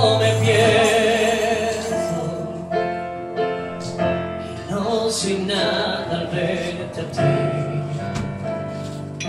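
A male voice singing held notes with vibrato over piano chords from a stage keyboard: a live voice-and-piano ballad.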